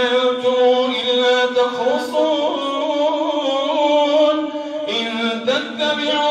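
A man's voice chanting Quran recitation in a melodic style, drawing out long held notes, amplified through a microphone. A short break comes near the end before the next phrase begins.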